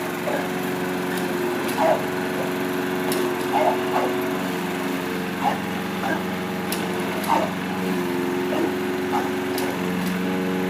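Lawnmower engine running steadily, with an English bulldog giving repeated short barks at it, about one every second or so: the dog is upset by the mower.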